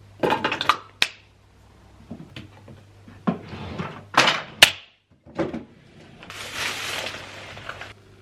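Household handling noises: sharp clicks and knocks with stretches of rustling, the loudest knocks a little over four seconds in and a longer rustle around seven seconds, over a faint steady hum.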